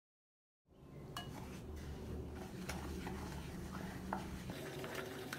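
Kitchen utensil clicking and clinking against a bowl while mixing, with a low steady hum underneath. It starts suddenly just under a second in.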